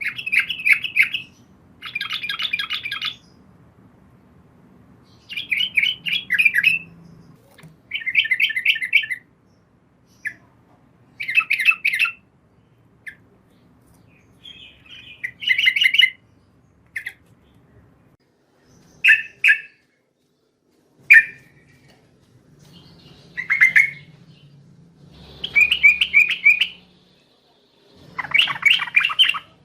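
Yellow-vented bulbul (trucukan) song: a series of short, rapid, bubbly chattering phrases repeated every couple of seconds.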